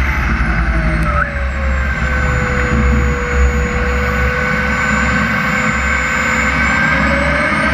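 Turbine engine of a CARF Viper model jet, close up from its belly, whining as it winds down in the first second or two, holding a steady pitch, then spooling up again near the end. A low rumble from the wheels rolling on the runway lies beneath it.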